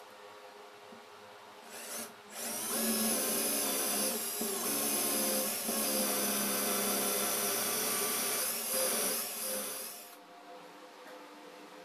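Cordless drill with a twist bit boring into a laminated plywood block: a short burst of the motor about two seconds in, then a steady run of drilling with the motor's whine, which stops near the end.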